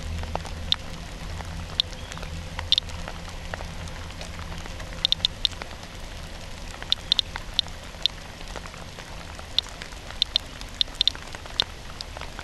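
Radiation Alert Inspector Geiger counter clicking at irregular intervals, roughly one or two clicks a second with some in quick pairs and triples; each click is one detected radiation count. Rain patters steadily on the counter and the wet ground around it.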